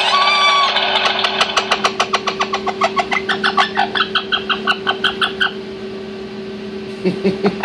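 Orange-winged Amazon parrot calling: a short whistled note just after the start, then a run of brief repeated notes in the middle, over an even run of fast clicks, about five a second. A steady low hum sits underneath.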